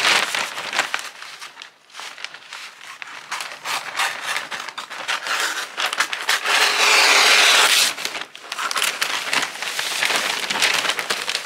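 Glossy rainbow wrapping paper crinkling and rustling as it is handled, folded and pressed around a gift. About two-thirds of the way through comes a louder continuous swish lasting about a second and a half, as the paper is slid or cut.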